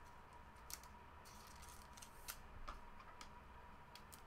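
Near silence: room tone with a few faint, scattered clicks and light rustles of trading cards and their plastic holders being handled.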